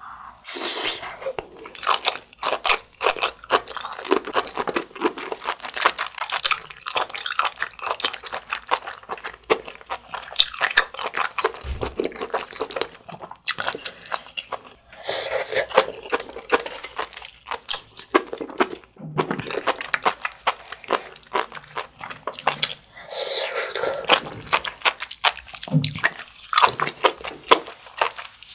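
Close-miked chewing of sea grapes: the small seaweed beads pop and crunch between the teeth in rapid, wet crackles.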